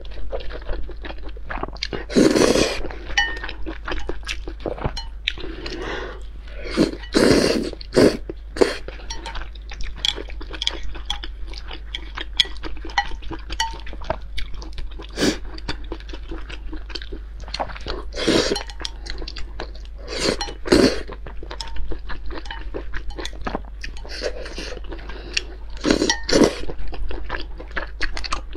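Eating sounds of noodles with crawfish tails: wet chewing and small crunches throughout, broken by about half a dozen loud slurps, with chopsticks clinking against a glass bowl.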